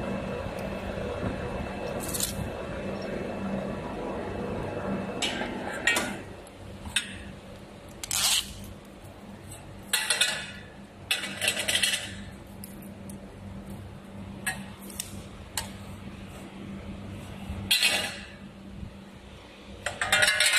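Pipe rolling and bending machine running with a steady hum as tube feeds through its rollers, dropping away about six seconds in. After that come scattered metal clinks and scrapes as the coiled steel tube is handled.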